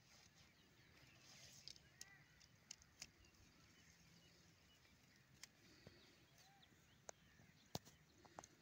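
Sectioned tent poles being handled and fitted together: a scattering of sharp clicks and taps, about seven, the loudest near the end, over faint outdoor quiet.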